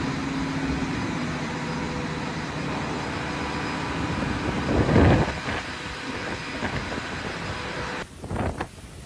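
Category 4 hurricane winds blowing hard as a steady rush of noise, swelling into a loud gust about five seconds in. About a second before the end the sound cuts abruptly to a choppier stretch of gusting wind.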